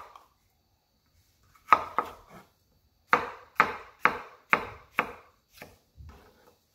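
Chef's knife chopping a red bell pepper on a wooden cutting board: a quiet moment, two chops, then a steady run of five chops about two a second, trailing off into lighter taps near the end.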